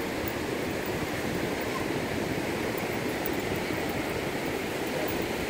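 Steady, even rush of ocean surf, with wind rumbling on the microphone.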